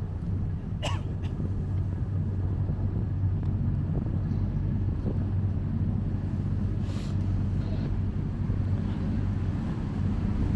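Canal tour boat's engine running at a steady cruise, a constant low hum. A short, rising high chirp sounds about a second in.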